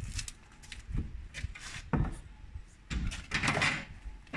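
Wooden blocks being handled and set against a steel stair frame: a few dull knocks about a second apart, then a short scrape of wood on metal.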